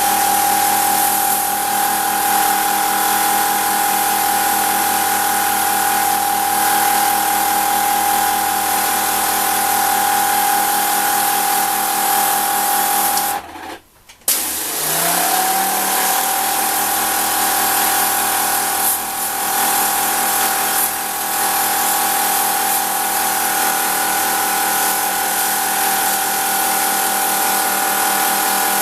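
HiKOKI AW18DBL cordless high-pressure washer pump running with a steady whine over the hiss of spraying water. About halfway through it stops for a moment, then spins back up with a short rising pitch and runs on.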